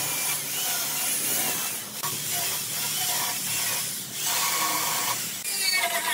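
Electric chainsaw cutting into a dry tree stump, its pitch wavering as it works through the wood, with two short breaks. Near the end an angle grinder starts on the wood, uneven and spiky.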